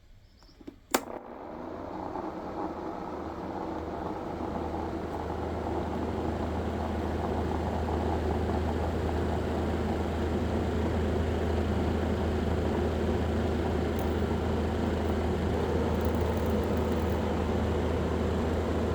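A sharp click about a second in, then a small battery-powered DC motor fan hums, getting louder for several seconds as it spins up and then running steadily.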